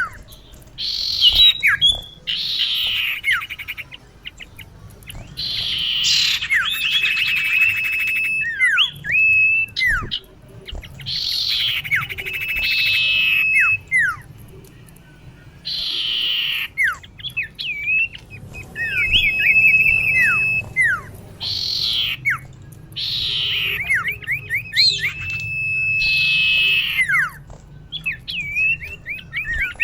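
Female common iora (cipoh) calling over and over: long steady whistles and quick down-slurred notes alternating with harsh, raspy calls, a new bout every second or two. This is the female's call to draw in males.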